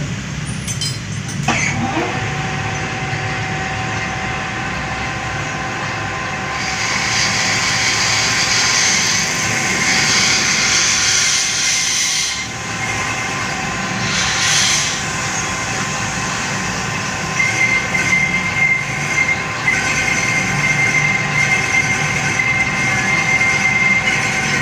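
A metal lathe is running while its cutting tool machines the face of a motorcycle engine block head. It makes a steady mechanical whine with a metallic scraping squeal. The scraping turns harsher and hissier for a few seconds in the middle, and a high, steady squeal sets in past the halfway point.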